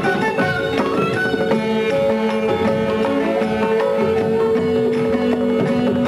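Indian classical instrumental music: a plucked string instrument plays a melody over a steady drone, with hand-drum strokes.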